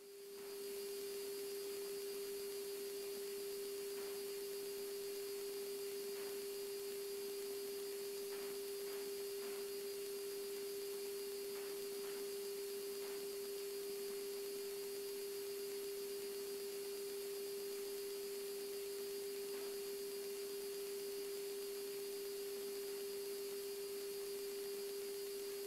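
A steady single-pitch electrical hum with a faint hiss on the airliner's cockpit radio and intercom audio feed, holding unchanged throughout.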